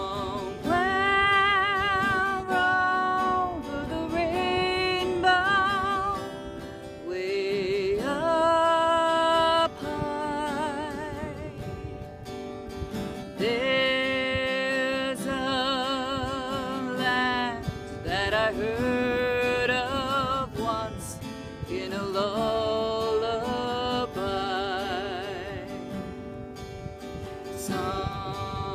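Background music: acoustic guitar with a melody sung with vibrato.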